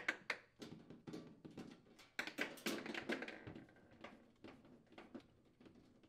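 Nut driver unthreading the screws of a refrigerator freezer's rear access panel: faint, irregular clicks and taps of the metal driver on the screw heads, with a short scraping stretch about two seconds in.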